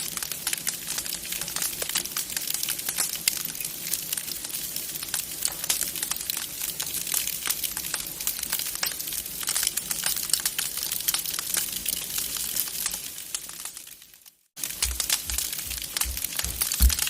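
Wood fire crackling in a fireplace: dense, continuous crackles and small pops. The sound fades out and cuts to silence about 14 seconds in, then the crackling resumes with a few low thuds.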